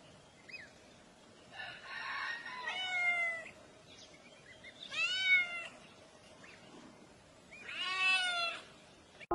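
A cat meowing three times, each a drawn-out call that rises and falls in pitch, with a few faint high chirps between them.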